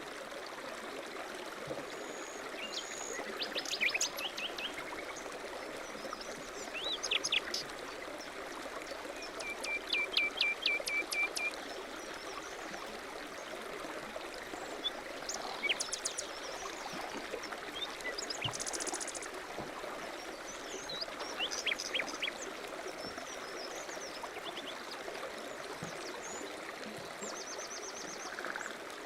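A stream runs steadily, with small birds chirping and trilling over it. About ten seconds in comes a quick trill of repeated notes.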